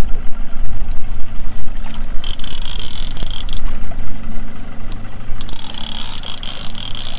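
Heavy lever-drag fishing reel buzzing in two spells, about a second and then about two seconds long, as a big fish on the line is fought. A steady low rumble runs under it.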